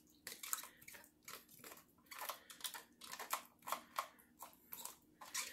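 A spatula scraping and tapping chopped garlic and onion out of a small clear plastic bowl: a faint, irregular run of short scrapes and clicks, a few a second.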